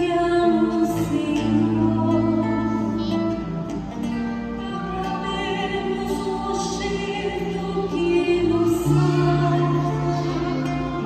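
A woman cantor singing a responsorial psalm in Portuguese over instrumental accompaniment, with held notes in the low register beneath the melody.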